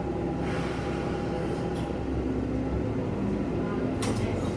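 Diesel railcar's engine running with a steady rumble and humming tones as the train begins to pull away slowly, with a sharp clack near the end.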